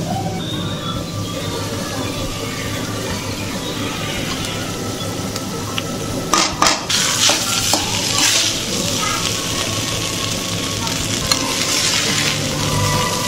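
Vegetables sizzling in a metal kadai while a steel spatula stirs and scrapes them. About six seconds in come a few sharp knocks of the spatula on the pan as cooked rice goes in, and then the rice being stir-fried rustles and sizzles more brightly.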